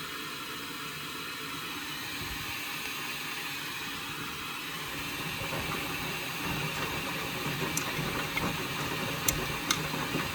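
Indesit washing machine tumbling its drum during a rinse, with the motor running and rinse water swishing round; the sound gets a little louder and busier about halfway through, and a few sharp clicks come near the end.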